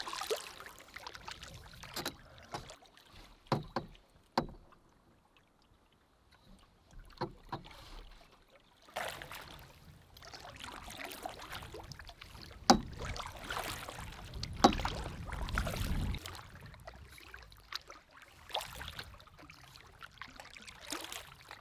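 A canoe being paddled: paddle strokes and water sounds, with scattered sharp knocks and a brief low rumble partway through.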